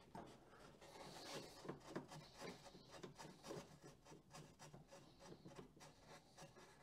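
Faint rubbing and small irregular clicks of fingers working a spark plug into a jetboard engine's cylinder head by hand in a cramped engine bay.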